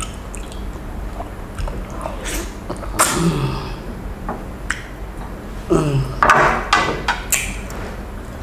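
Close-up sounds of eating fish by hand: fingers picking and squishing through fish in sauce, with a few sharp clicks. Two short murmurs with falling pitch come about three and six seconds in.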